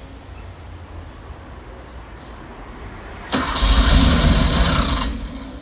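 Porsche 911 Turbo's flat-six engine in a hard-start attempt: about three seconds in it cranks and fires loudly for just under two seconds, then the sound drops away again.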